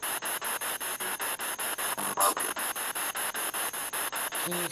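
Spirit box sweeping through radio stations: hissing static chopped into rapid, even pulses, several a second. About two seconds in comes a brief louder snatch of broadcast-like voice.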